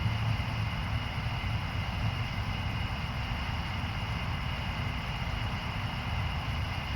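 Steady outdoor background noise during a thunderstorm: an even low rumble with a hiss above it and faint steady high tones, with no single thunderclap standing out.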